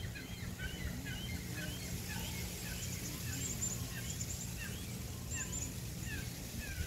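Birds chirping: many short chirps, several a second and sliding in pitch, over a steady low rumble.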